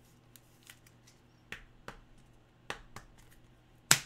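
Trading cards being handled: scattered light clicks and taps, with the sharpest one near the end.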